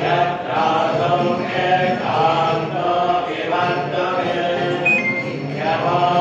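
Devotional chanting by temple priests: a slow, melodic recitation moving in phrases of about a second each, with no break.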